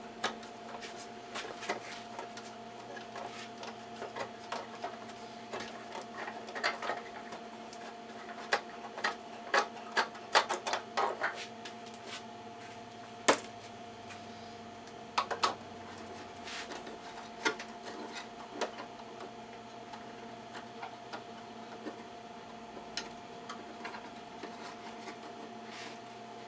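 Scattered clicks and light knocks of hand tools and small metal hardware while an electronic instrument's front panel is being unfastened. They are busiest about a third of the way in, over a steady electrical hum.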